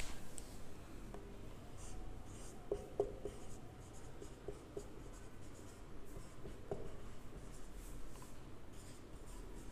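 Marker writing on a whiteboard: faint, short scratchy strokes as the letters are formed. There is a sharp click at the start and a few light knocks along the way.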